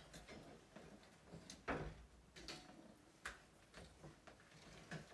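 Faint handling sounds of fallen clothes and bags being picked up and hung back on a metal rack: a few light knocks and clicks, the sharpest about two seconds in.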